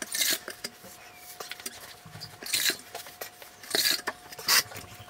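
A porcelain plank tile floor being wiped and scrubbed wet: four loud rasping swishes, with many small clicks and knocks between them.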